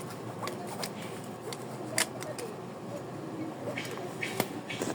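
Scattered sharp clicks and knocks over a steady background noise, the loudest about two seconds in.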